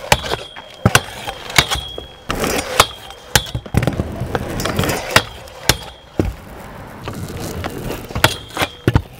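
Stunt scooter grinding a metal roof rail: a string of sharp clacks as the deck and wheels hit the rail and roof. Several clacks are followed by a brief high metallic scrape or ring.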